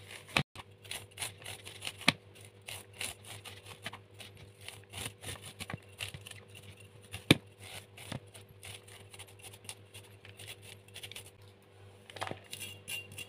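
Knife blade shaving kernels off a fresh young corn cob into a plastic bowl: a quick, irregular run of crisp scraping strokes and small clicks, with one sharper click about seven seconds in, over a faint steady hum.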